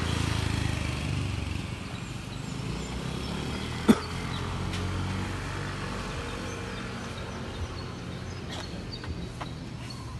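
Street ambience: a steady low rumble of passing and idling vehicle engines, with one sharp click about four seconds in and a few faint high chirps.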